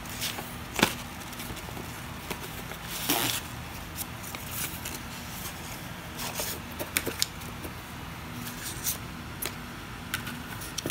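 A cat batting at and pawing a small paper card: scattered light rustles and ticks of paper and claws, with a sharp snap about a second in and a longer rustle about three seconds in. A steady low hum runs underneath.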